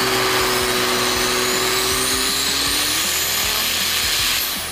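Triple-turbo 6.7L Cummins diesel truck making a full pull on a chassis dyno: loud engine and turbo noise with a high whine rising steadily in pitch, easing off near the end as the pull ends.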